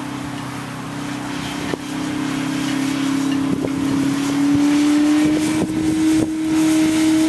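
A car stuck in deep snow, its engine held at high revs and its wheels spinning: a steady whine that slowly rises in pitch and grows louder.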